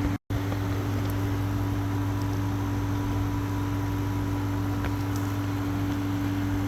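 A steady mechanical hum with a low drone and a second, higher steady tone, unchanging in pitch and level, broken by a brief silent cut just after the start.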